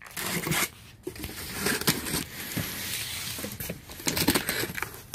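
Box cutter slitting the packing tape along the top seam of a cardboard box. The blade drags through the tape and scrapes the cardboard in several uneven, scratchy strokes.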